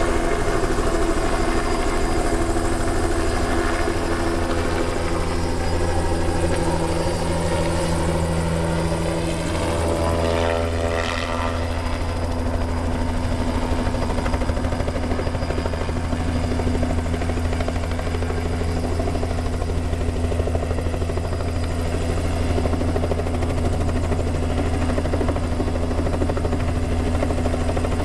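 Helicopter hovering low: a steady rotor beat with an engine whine over it. About ten seconds in, the sound sweeps briefly as the helicopter turns.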